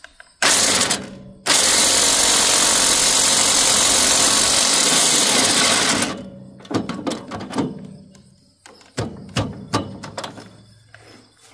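Corded electric impact drill hammering on a bolt inside a chipper shredder, trying to tighten it: a short burst, then about four and a half seconds of continuous hammering that stops sharply. A series of sharp metal knocks and clicks follows.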